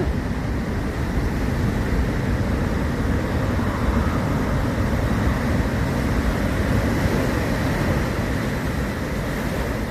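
Heavy surf from a rough sea, waves breaking in a loud, steady rumble.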